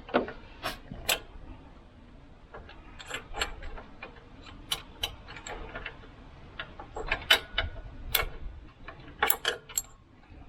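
Irregular light metallic clicks and taps of a spanner working the mounting bolts of a tractor's voltage regulator.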